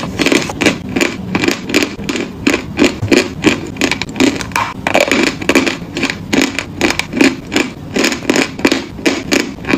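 Chalk being bitten and chewed: a steady run of crunches, about three a second.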